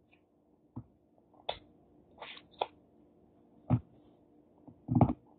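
Close-up eating sounds as crab legs are bitten and sucked: about five short, sharp smacks and cracks, then a brief voiced mouth sound near the end.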